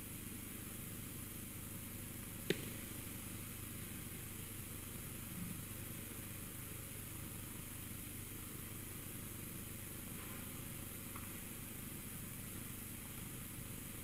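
Quiet room tone: a steady low hum and hiss, broken by one sharp click about two and a half seconds in and a faint soft knock a few seconds later.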